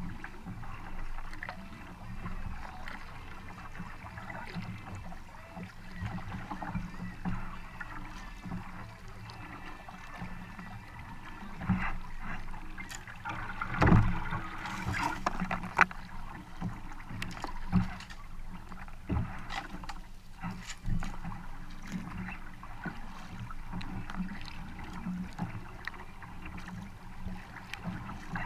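Kayak paddling: a double-bladed paddle dipping into and pulling through the water, stroke after stroke, with splashing and dripping off the blades. One louder thump comes about halfway through.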